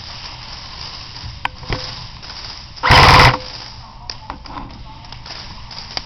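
Airsoft gun firing one short burst, very loud and about half a second long, about three seconds in. A few sharp clicks and knocks come before and after it.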